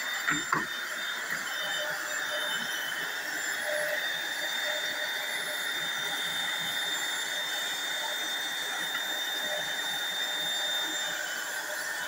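Corded stick vacuum cleaner running steadily as it is pushed over a bare wooden floor: a steady motor whine over rushing air. A few light knocks come about half a second in.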